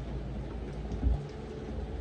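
Steady rain with a low rumble underneath and faint scattered drip ticks, and one low thump about a second in.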